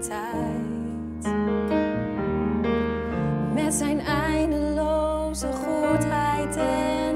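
A woman singing a Dutch song with vibrato on her held notes, accompanied by grand piano and electric bass guitar.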